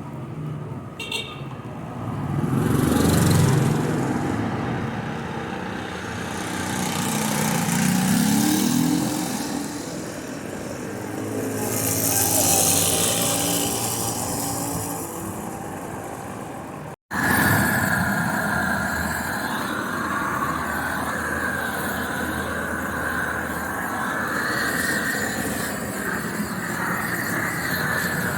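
Street traffic: three vehicles pass one after another, each engine rising and falling in pitch and loudness. A sudden cut follows, and then a steady street hubbub.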